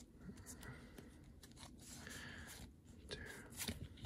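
Faint sliding and flicking of a stack of Pokémon trading cards being shuffled through by hand, cardstock rubbing on cardstock, with a few light clicks near the end.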